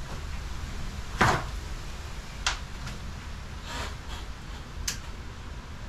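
A few scattered knocks and clicks from hands working at a wall-mounted DeWalt cordless-tool battery charger and its cord, the loudest about a second in.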